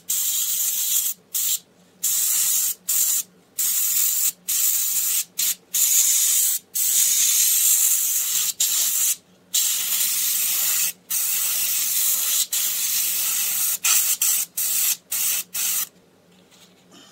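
Bottle-fed airbrush spraying black paint: a hiss that starts and stops over a dozen times in short spurts as the trigger is worked, then stops about a second before the end.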